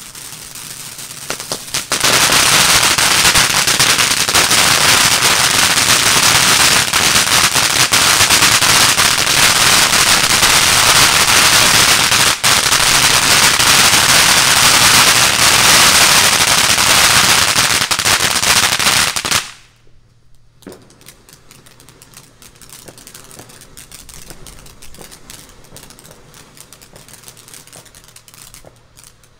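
A Cutting Edge Fireworks ground fountain sprays sparks, and about two seconds in it breaks into a loud, dense crackling that runs for some seventeen seconds. The crackling cuts off sharply, and the fountain goes on with a much quieter hiss and scattered pops.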